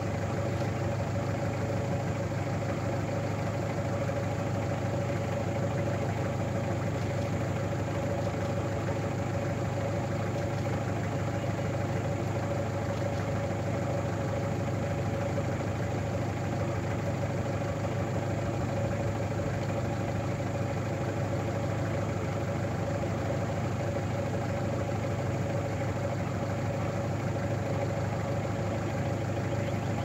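A vehicle engine idling steadily, an even hum with no revving or breaks.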